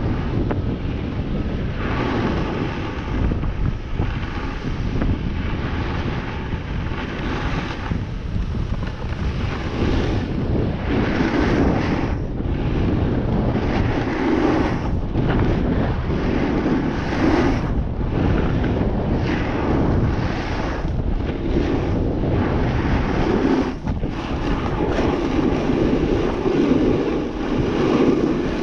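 Wind rushing over the microphone on a descent down a snow run, with the scrape of edges on snow swelling and fading every couple of seconds as the rider turns.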